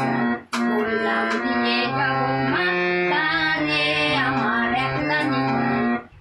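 Harmonium playing sustained reed notes and chords under a melody, with a woman singing along. The sound breaks off briefly twice, about half a second in and just before the end.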